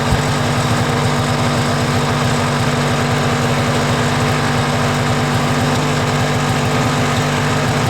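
Snowmobile engine running at a steady, unchanging pitch.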